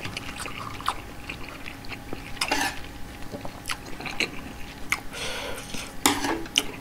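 Spoon and chopsticks clicking and scraping against a stone soup bowl, with soup stirring and a few short wet rustles as a piece of kimchi is lifted.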